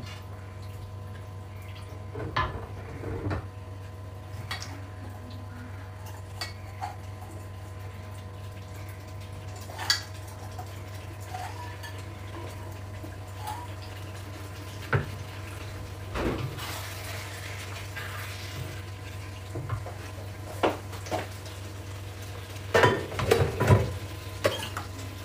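Cookware and metal utensils clinking and knocking against each other now and then, with a quick cluster of clatters near the end, over a steady low hum.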